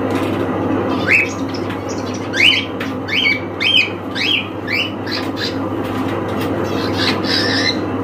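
Cockatiel giving a run of about seven short, sharply rising chirps, then a harsher, noisier call near the end.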